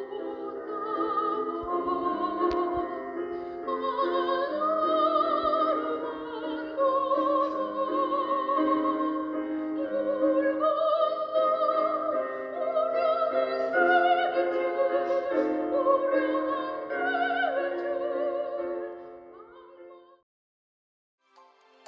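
Singing in slow, drawn-out notes with heavy vibrato over a sustained accompaniment; it fades out and stops about 20 seconds in.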